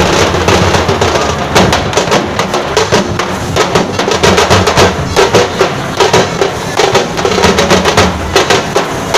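Dhol-tasha ensemble playing a fast rhythm: large barrel-shaped dhol drums beaten with sticks under a dense, rapid clatter of stick strokes on small tasha drums.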